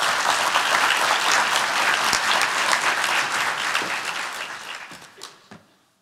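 Audience applauding at the close of a talk, a dense steady clapping that dies away near the end to a few scattered claps.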